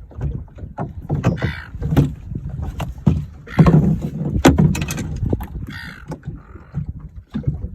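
Irregular knocks and clatter in an aluminium tinnie, over a low rumble, with a few short hissing rushes.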